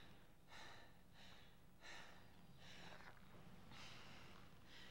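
Near silence with faint, short breaths, roughly one a second.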